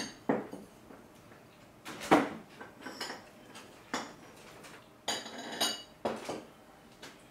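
Tableware at a meal: tea glasses on saucers, plates and cutlery clinking and knocking on the table in a series of separate short knocks and chinks, the loudest about two seconds in.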